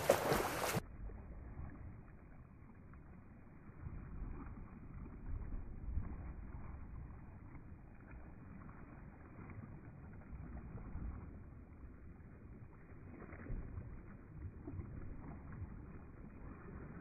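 Swimming-pool water splashing and lapping as a person swims arm strokes. It is clear for the first second, then dull and muffled, with uneven swells of splashing, louder around four to six seconds in and again near thirteen seconds.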